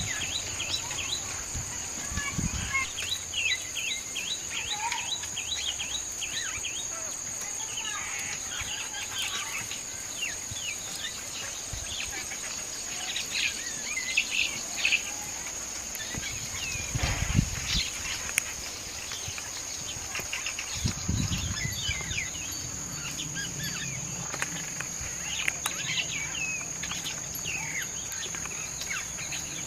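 Insects droning with a steady high-pitched note, overlaid by many short, quick chirps in loose clusters. A few low thumps come about two, seventeen and twenty-one seconds in.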